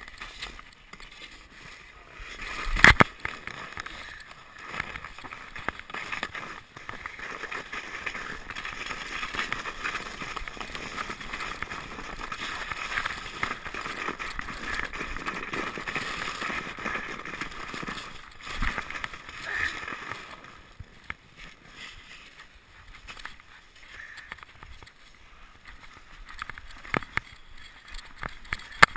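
Plastic sled sliding over snow: a steady scraping hiss with small bumps and knocks. The loudest sound is one sharp knock about three seconds in, and the hiss dies down about twenty seconds in.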